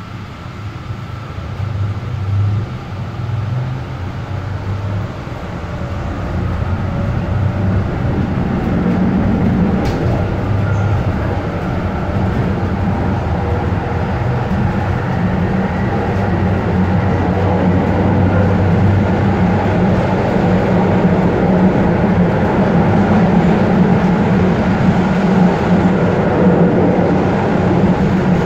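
Moderus Beta MF24AC low-floor tram running, heard from inside the passenger compartment. A steady low hum and rumble grows louder over the first several seconds and then holds steady. There is a brief click about ten seconds in.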